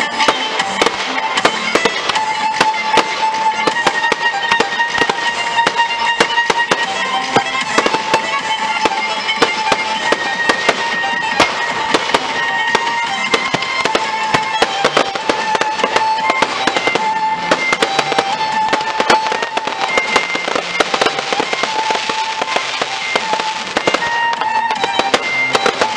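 Dense fireworks barrage: rapid crackling and many overlapping bangs from shells bursting together, over show music with long held melody notes.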